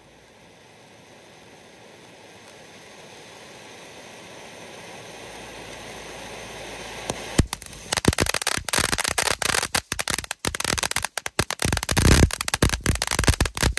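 Firework fountain spraying sparks with a steady hiss that grows steadily louder, then about seven seconds in a sharp crack and a dense, rapid run of crackling pops as it throws out crackling stars.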